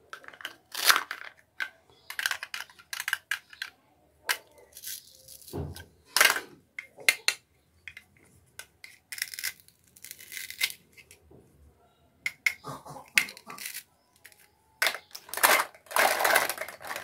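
Toy plastic fruit being cut apart with a plastic toy knife: short ripping sounds as the hook-and-loop joined halves pull apart, among irregular plastic clicks and knocks as the pieces and knife are handled and set down. The rips grow longer and louder near the end.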